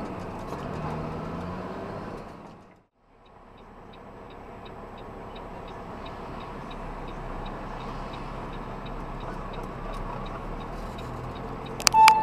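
Vehicle engine pulling with its pitch rising, heard from inside the cab; after a brief cut, steady road noise with a faint regular clicking of turn-signal or hazard flashers about three times a second. A short, loud horn-like tone sounds near the end.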